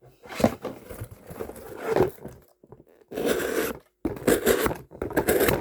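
Stainless steel knife blade drawn in a few long scraping, crunching strokes, with short pauses between them, while its edge is sharpened and tested.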